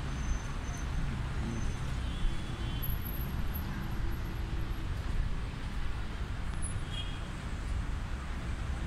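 City street traffic: a steady rumble of passing road vehicles.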